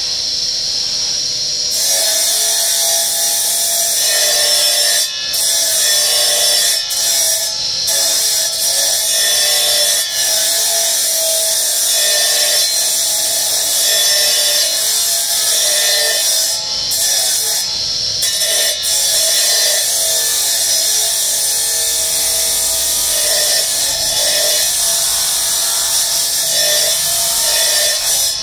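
Circular saw blade cutting into a small block of marble, a steady high-pitched grinding as the stone is fed into the blade to cut a row of slots. The top of the sound eases off briefly a few times.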